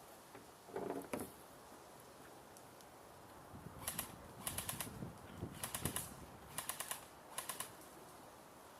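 Airsoft rifle firing five or six short bursts of rapid, sharp clicking shots over a few seconds, after a brief knock about a second in.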